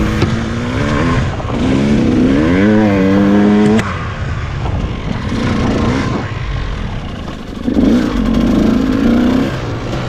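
KTM EXC 200 two-stroke enduro engine revving as the bike is ridden, in bursts: a rising rev from about a second and a half in that cuts off near four seconds, and another burst near eight seconds.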